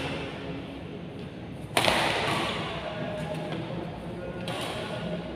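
Badminton racket striking a shuttlecock with one sharp, loud crack about two seconds in, ringing on in the hall's echo, with fainter hits around it.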